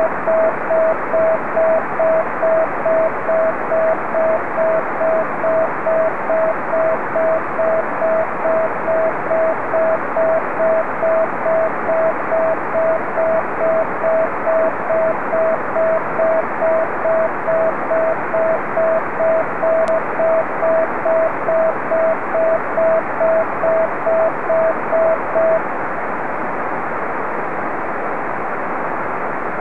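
Unidentified 432.075 MHz beacon heard through an amateur radio receiver in CW mode: a single tone keyed in an even string of short beeps, a little under two a second, over steady receiver hiss. The beeping stops near the end, leaving only the hiss.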